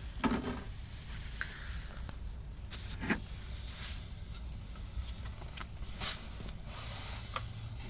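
Faint, scattered clicks and light scrapes over a steady low hum and hiss: a Torx screwdriver and hands fumbling for the fog light screws inside a car bumper.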